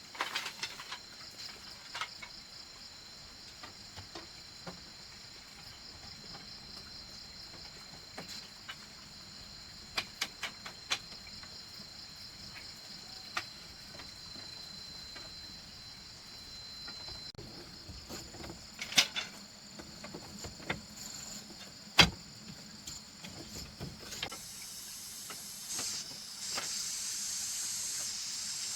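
A steady, high-pitched insect chorus, growing louder and fuller near the end, with scattered clicks and knocks of bamboo being handled and worked. Two sharper knocks stand out past the middle.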